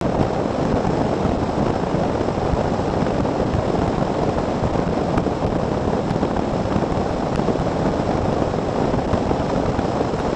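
Falcon Predator bass boat running fast across open water: a steady rush of wind and water noise, with wind buffeting the microphone on the front deck.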